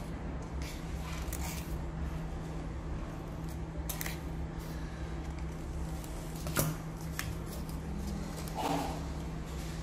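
Scissors cutting thin craft paper in a few separate snips, over a steady low hum. A sharper click about two-thirds of the way through is the loudest sound, and paper is handled near the end.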